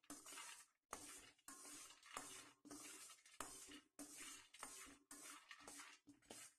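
Faint scraping and rattling of almonds stirred with a metal slotted spoon in a dry stainless-steel pan, dry-roasting without oil, in repeated strokes about once or twice a second.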